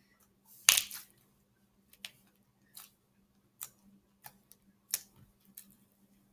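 Slime mixed with plastic beads being pressed and squished by hand, giving scattered sharp clicks and pops about once a second.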